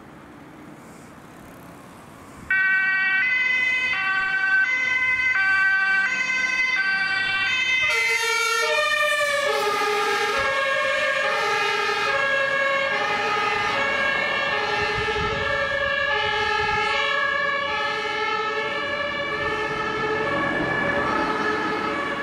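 Ambulance's German two-tone siren (Martinshorn) starts about two and a half seconds in, alternating a high and a low note. About eight seconds in it changes over to a different, lower-pitched two-tone horn, which keeps alternating to the end. Before the siren starts there is only faint traffic noise.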